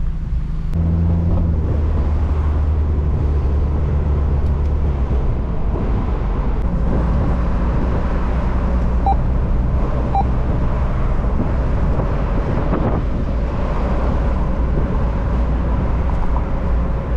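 Lowered Mazda Miata's four-cylinder engine and road noise heard from inside the cabin while driving. The engine hum steps up about a second in and then holds steady. It "does sound like it's gonna break half the time".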